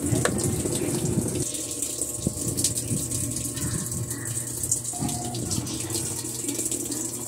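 Electrolux LTR 10 washing machine running with water in the tub: water gushing and sloshing over a steady low hum, with a few irregular knocks.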